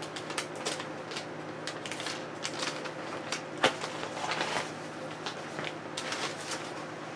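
Hands handling packaging: irregular light clicks and rustling, with a sharper knock about three and a half seconds in, over a steady low hum.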